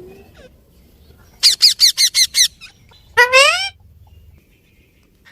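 Parrot calling: a quick run of six sharp, falling chirps about a second and a half in, then one longer harsh squawk.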